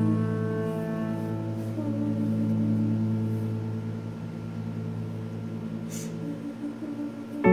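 Background music: long held chords that slowly fade, with a new, louder chord coming in right at the end.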